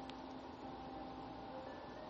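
Faint soft background music: a few quiet sustained notes held over a low hiss.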